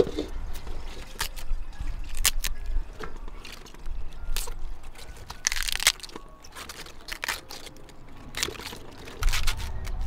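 Cabbage leaves torn apart by hand: a string of crisp snaps and rips, with one longer tearing sound a little past halfway.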